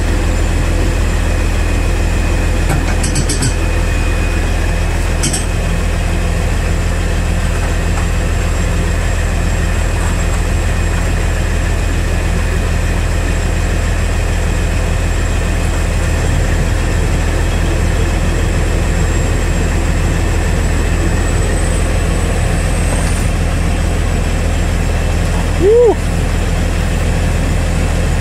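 Kobelco SK045 excavator running steadily as it tracks off the side of a lowboy trailer, a deep engine hum throughout. A few light clicks come early, and a short loud squeal rises and falls in pitch near the end.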